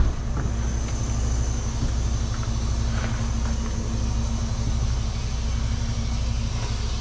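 An engine idling steadily, a low even rumble that does not change.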